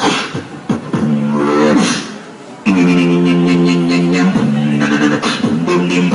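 Dubstep beatboxing through a microphone: low vocal bass wobbles with sharp percussive clicks and snares. A brief lull about two seconds in, then a loud held low note with the beat running over it.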